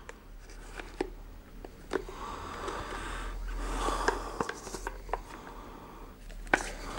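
White plastic sushi-maker tube being handled: a few light plastic clicks and knocks, with a soft rushing noise in the middle.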